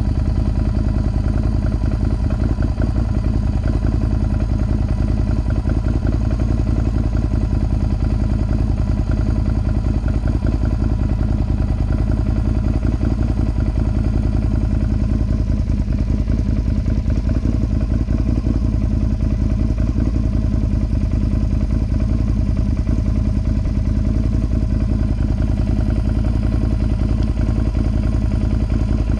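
Can-Am Outlander XMR 1000's V-twin engine idling steadily through an aftermarket Yoshimura exhaust, a fast even pulse with no revving.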